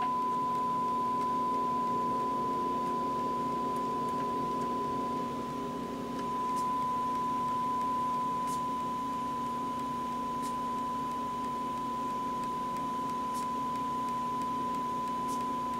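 Steady 1 kHz reference tone played back from an MRL test tape on an Otari MTR-90 Mark III multitrack tape machine, the level the repro gain is set to read 0 VU against. A low hum runs beneath the tone.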